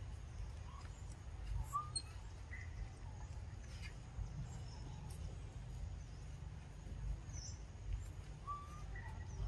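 Birds chirping, a scattering of short, faint high calls over a steady low rumble.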